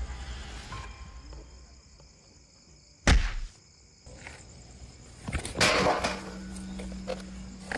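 Film sound effects of an attack: a sudden sharp hit about three seconds in, then a longer noisy scuffle around five to six seconds, after which a low steady hum sets in.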